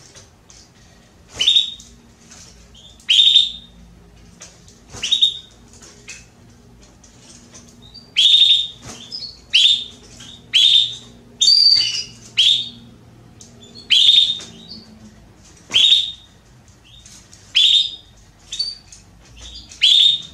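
Female domestic canary giving short, sharp calls, about fifteen of them, a second or two apart and sometimes in quick pairs. This is the call a hen in breeding condition uses to ask a male to mate.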